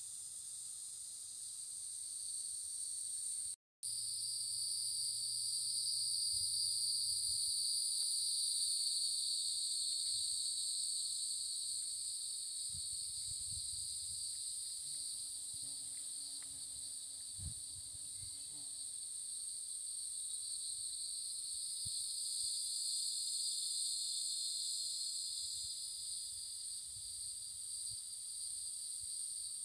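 A steady, high-pitched chorus of insects droning without a break, with a sudden dropout lasting a fraction of a second a few seconds in.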